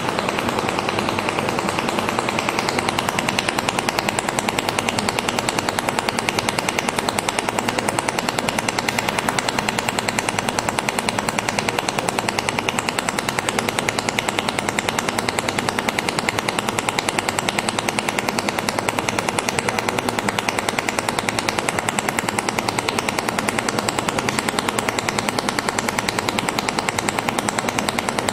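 Automatic welding machine running a weld on stainless steel plate: a steady, rapid pulsing rattle that keeps an even pace.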